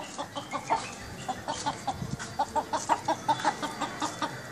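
Chicken clucking, a steady run of short clucks several times a second.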